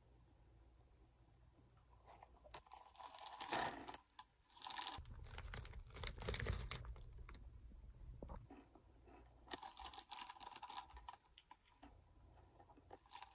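Crisp crunching of Funyuns onion-flavored ring snacks being chewed, mixed with the crinkling of the plastic snack bag as it is handled. The crackling comes in dense clusters after a quiet first couple of seconds, with a low handling rumble about halfway through.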